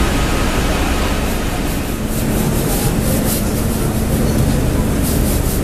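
Tea factory processing machinery running: a loud, steady mechanical din with a low hum underneath. From about a second in there are repeated short hissing rattles.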